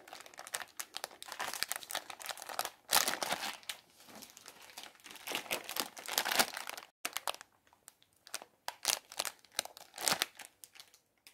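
Crinkly foil wrappers of Pop-Tarts pastry pouches crackling as they are handled. The crackling is dense at first, cuts out briefly about seven seconds in, then comes back as sparser crinkles.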